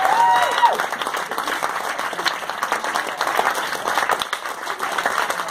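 Theatre audience applauding: dense, steady clapping from many hands.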